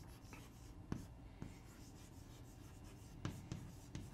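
Chalk writing on a chalkboard: faint strokes with several sharp taps as the chalk strikes the board to form letters.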